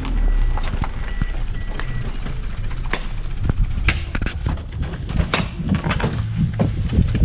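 Music with a heavy bass beat plays throughout, with a run of sharp knocks and clacks about three to five seconds in.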